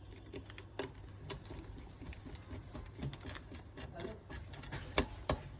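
Light clicks and taps of small hardware being handled as an NVMe SSD is seated and screwed down in a motherboard's M.2 slot, with two sharper clicks near the end.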